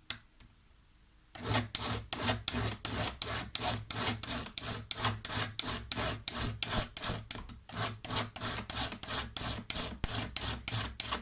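Flat file scraping across the depth gauges (rakers) of a chainsaw chain in short, even back-and-forth strokes, about three to four a second, starting after a second or so of quiet.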